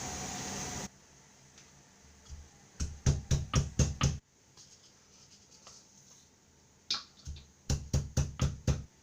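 Stone pounding onion, ginger, green chilli and spices on a grinding stone: two quick runs of sharp knocks, about five or six strikes each. A steady hiss cuts off about a second in.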